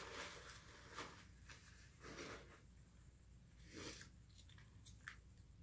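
Faint chewing and mouth sounds of a person eating, with a few soft clicks and rustles spaced about a second apart, over near silence.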